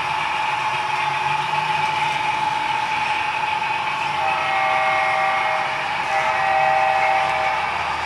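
HO scale model coal train rolling past. Its running noise carries a steady high tone, joined about halfway through by several more high tones that come and go.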